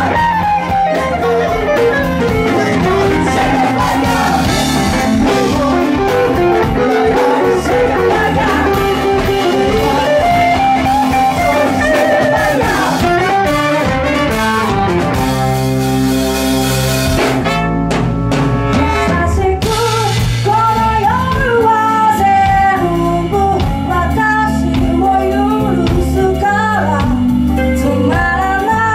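Live band playing a bluesy rock song. An electric guitar leads the melody over drums and bass in the first half, the band holds a chord with a cymbal wash around the middle, and then a woman sings the lead.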